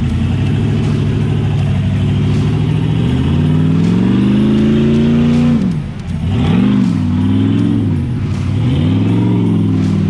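454 big-block V8 of a Jeep LJ-based rock bouncer revving hard on a rock climb. The revs build over a few seconds, drop sharply about six seconds in, then come in several quick rises and falls.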